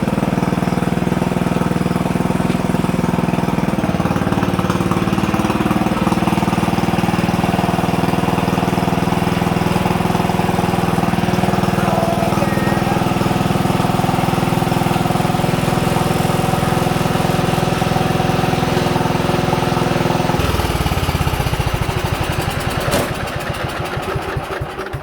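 Sears 10/6 lawn tractor's replacement engine running steadily while the tractor is driven under its own power. About 20 seconds in the engine note drops and the engine runs down near the end.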